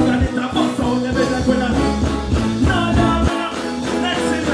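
Stage band music over the PA with a steady drum beat and keyboard chords; the bass drops out about three seconds in.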